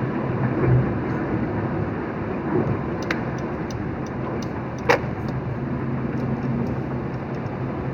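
Steady road and engine noise inside a moving vehicle's cabin, with a low hum. A couple of short sharp clicks come about three seconds in and again, louder, about five seconds in.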